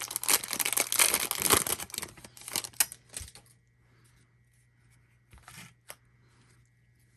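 A Bowman Draft trading-card pack wrapper being torn open and crinkled, loud and crackly for about the first three seconds, then only a few faint rustles and clicks.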